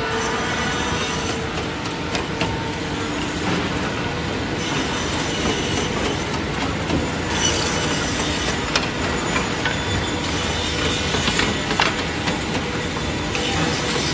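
LKCN-120C CNC rip saw machine running: a steady mechanical noise with scattered clicks and knocks.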